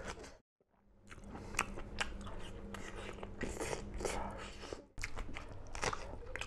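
A person chewing and biting smoked pork close to the microphone: many short crunching clicks, after a brief gap of silence near the start.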